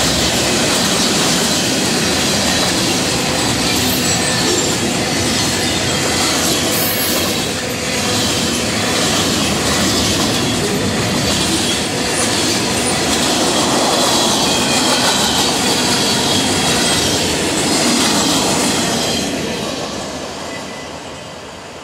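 Freight cars of a fast-moving Union Pacific mixed freight train rolling past at close range, steel wheels running on the rails in a loud, continuous din. The noise dies away over the last few seconds as the end of the train passes.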